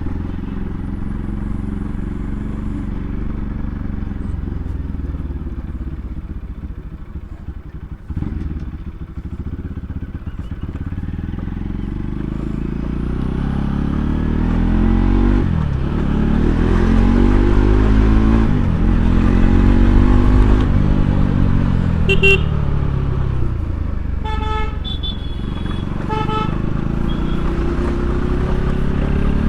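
Bajaj Pulsar NS200's single-cylinder engine running on the move, its pitch rising and falling with throttle and gear changes and climbing hardest in the middle. A horn sounds briefly about three-quarters of the way through, then twice more a couple of seconds later.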